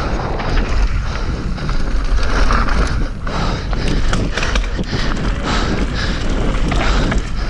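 Mountain bike descending a dirt trail at speed: the tyres rolling and crunching over dirt, and the bike rattling with many sharp clicks over bumps, under a heavy wind rumble on the microphone.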